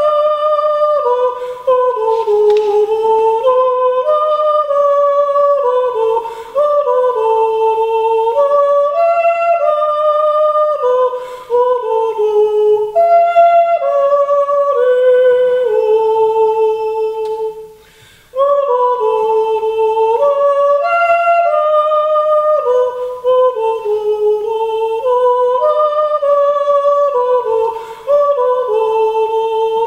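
A man yodeling solo and unaccompanied, his voice stepping between high held notes, with short breaths between phrases and a longer pause just after halfway.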